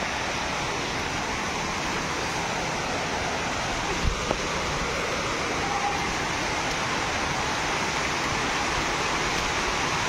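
Steady rush of a large waterfall: an even hiss of falling water, with a brief thump about four seconds in.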